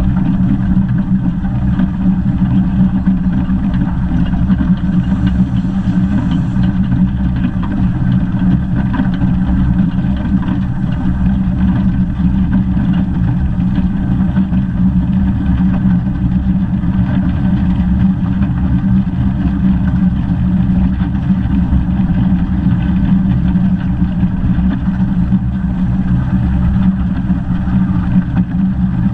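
Steady low rumble of the 15-inch-gauge steam locomotive 'Northern Rock' and its train on the move, heard from a camera mounted on the locomotive's cab side.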